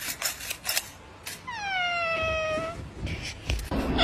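A cat meows once: one long drawn-out call that starts high and slides down, beginning about a second and a half in. A few sharp clicks come before it.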